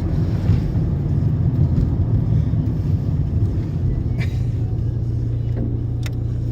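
Low, steady rumble of a car's engine and road noise heard from inside the cabin while driving.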